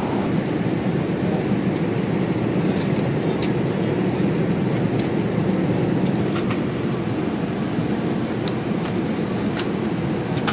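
Steady cabin noise of a Boeing 787 Dreamliner in flight, heard from inside the cabin: a constant low rush of engine and airflow, with a few faint clicks.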